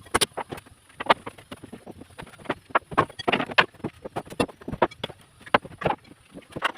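Irregular knocks and clatter of formwork being stripped from under a cast concrete slab: sharp blows and wooden boards and props knocking together at an uneven pace.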